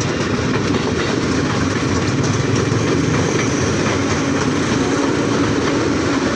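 KRL Commuter Line electric multiple-unit train rolling past at close range: a steady rumble of steel wheels on the rails, with faint clicks as the wheels pass over the track.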